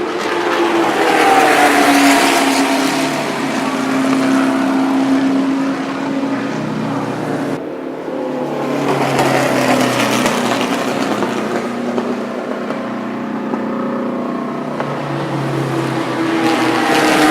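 Vintage Indy race car engines running at high revs on track, the engine note rising and falling as cars pass. The sound breaks off abruptly about seven and a half seconds in and picks up again on another car.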